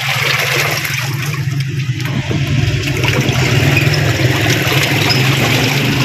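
Washing machine running on its wash setting with water in the tub: a steady motor hum under the rush and slosh of churning water. It is on a test run after its gearbox was refitted, to check the repair of a noisy, slow-turning wash.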